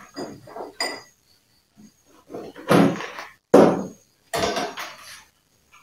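Objects handled and set down on a wooden tabletop, a plastic power strip and tubing among them: a few separate knocks and thuds with short gaps between, the loudest about three and a half seconds in.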